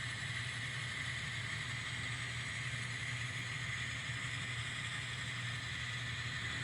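N scale model locomotive (NS SD70ACe) running steadily along the track, a constant small-motor hum with a higher whine.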